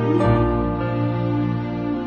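Slow background music with long held notes; a deeper bass note comes in shortly after the start.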